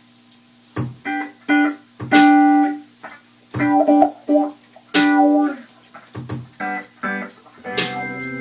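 Electric guitar playing short struck chords and notes in separate phrases with brief pauses between, a few held for about half a second. Near the end a sustained organ-like keyboard chord comes in underneath.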